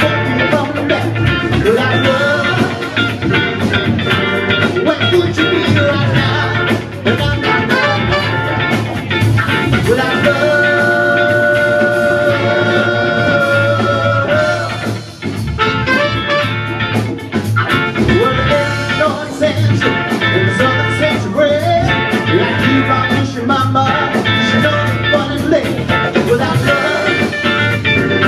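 Live band with drum kit, electric guitar, horns and lead and backing vocals playing an upbeat rock song, with a held chord about ten seconds in.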